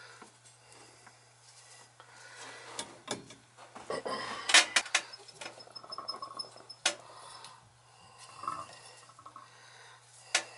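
Clinks, taps and scraping of metal parts and tools being handled: a brass Taco zone valve body, locking C-clamp pliers and a wire fitting brush scrubbing a copper pipe end ahead of soldering. The sharpest clicks come about four and a half seconds in, over a steady low hum.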